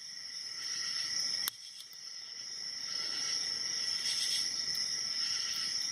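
Faint clicking of a hook pick working the pins of an Abus 72/40 padlock under tension, with one sharper click about a second and a half in. A steady high-pitched background whine runs underneath.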